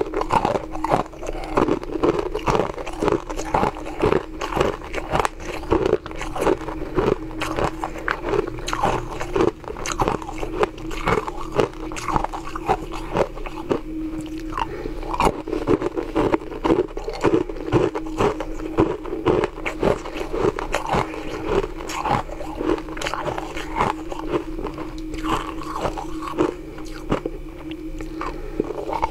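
Ice being bitten and crunched close to the microphone: small frozen rounds from a honeycomb ice mould cracking and grinding between the teeth in a dense run of sharp crunches. A steady low hum runs underneath.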